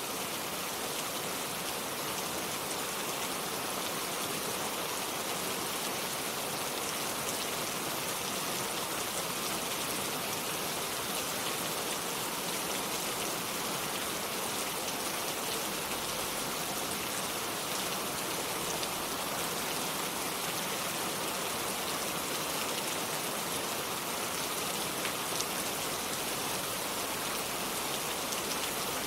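Steady rain falling, a constant hiss of drops with fine patter on surfaces and no thunder.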